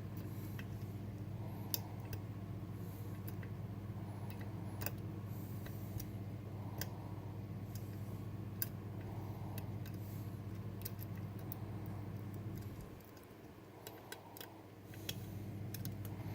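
Irregular small metallic clicks and ticks of a lock pick and tension tool working the sliders of a Bellock cam lock during picking. Under them runs a steady low hum that drops away briefly near the end.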